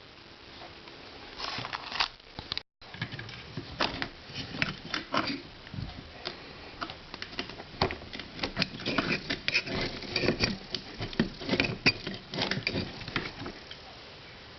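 Irregular small clicks and rustles of hands handling things close to the microphone, with a brief break in the sound early on.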